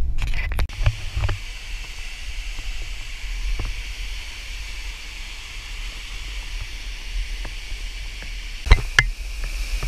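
Steady rushing hiss of a waterfall. A few sharp knocks come in the first second as a hand grabs the camera, and a loud knock near the end.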